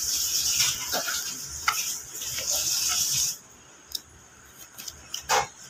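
Steady high hiss that cuts off abruptly about three seconds in, with a few light taps of a knife cutting fried chicken liver against a cutting board.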